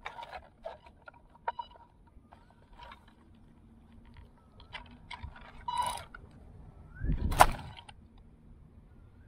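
Close handling noise of a small RC buggy carrying the camera as it is picked up by hand and set back down on wood-chip mulch: scattered clicks, knocks and rustles, with a louder thump and rustle a little past seven seconds in.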